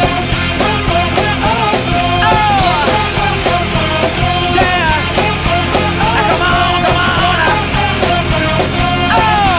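A funk-rock band playing an instrumental passage: bass and a steady drum beat under a lead melody line with notes that bend and slide in pitch.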